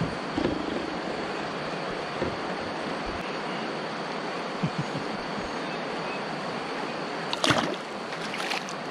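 Steady rush of river water, with a sharp splash about seven and a half seconds in as a small fish is tossed back into the river, and a smaller splash just after.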